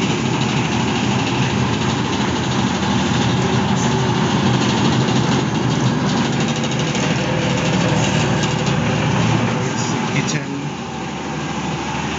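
Houseboat engine running steadily while the boat is underway. It drops a little in level about ten seconds in.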